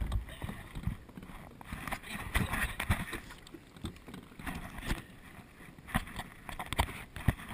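Water sloshing and splashing around a kayak close to the microphone, with irregular knocks and bumps against the hull and camera.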